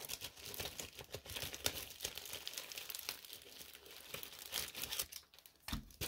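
Crinkly plastic packaging handled up close, a continuous run of small crackles.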